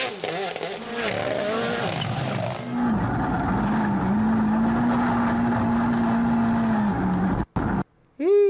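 Rally car engine at high revs: the note shifts up and down through gear changes, then holds steady at high revs for about four seconds. The sound cuts out briefly near the end, then a car's engine note falls sharply in pitch as it passes.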